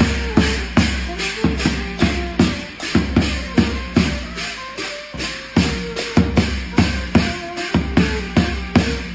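Loud live band music: a large drum beaten with a mallet on a steady quick beat, about two to three strokes a second, with a hand-held gong struck along with it, over a saxophone melody of held notes.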